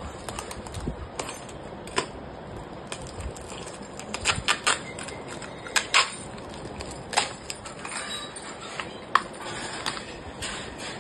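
Scissors snipping and hands pulling thin plastic wrapping off a clear plastic box, giving sharp crinkles and clicks at irregular moments, with a cluster of them around the middle.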